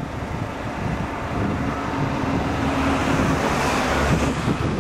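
Diesel engines of heavy earthmoving machinery, a crawler dozer and an articulated dump truck, running under load with a steady drone that swells a little about three seconds in.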